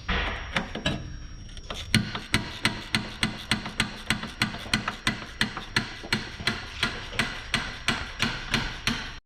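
Hammer blows struck over and over at an even pace, about two or three a second, knocking a rigid car exhaust section loose.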